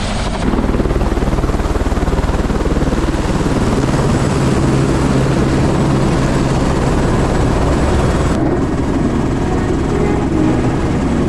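Helicopter running on the ground, its rotor blades making a fast, steady, loud chop. The sound turns duller, with less high end, about eight seconds in.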